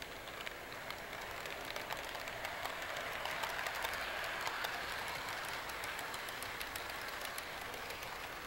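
HO scale model freight cars rolling past on the track: a steady rattling whir of small wheels with many light ticking clicks, growing louder as the cars pass close and easing off near the end.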